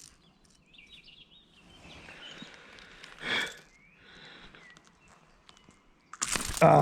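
Small birds chirping faintly over light rustling and handling noise, with a short noisy rustle about three seconds in. Near the end comes a loud scuffle as a just-caught small pike thrashes in hand.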